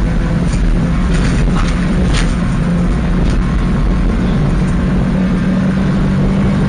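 Interior sound of a Subaru Impreza rally car at speed on a gravel stage: its flat-four engine runs at steady high revs over a dense rush of tyre and road noise, with a few sharp clicks of stones striking the car.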